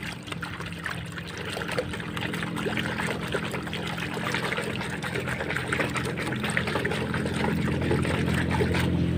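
Muddy water sloshing and splashing in a plastic tub as a hand scrubs a toy bulldozer under the surface, a busy run of small splashes that grows louder toward the end, over a steady low hum.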